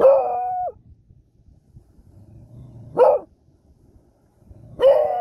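Beagle howling three times in alarm. The first and last howls rise quickly and then hold a steady pitch for about half a second; the middle one, about three seconds in, is short.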